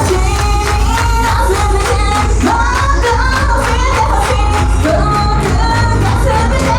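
Japanese idol pop song: female voices singing a melody over a loud backing track with a steady, driving beat.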